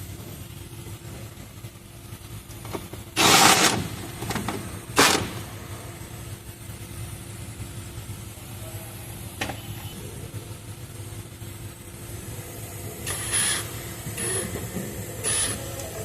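Steady low engine-like hum in the background. Short, loud, noisy clatters from handling parts come about three and five seconds in, and again in a cluster near the end, as the turbo hose is fitted.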